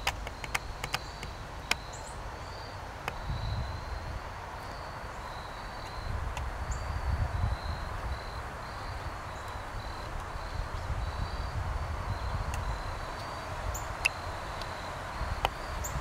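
Outdoor ambience: an insect chirping steadily in short, high, evenly spaced pulses, about two a second, over a low rumble. A few sharp clicks and faint high chips come and go.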